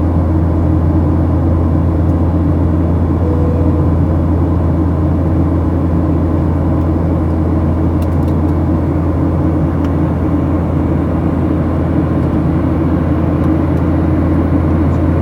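Boeing 737 in flight: the steady drone of its jet engines and rushing air as heard in the cabin, with a strong low hum and no change in level.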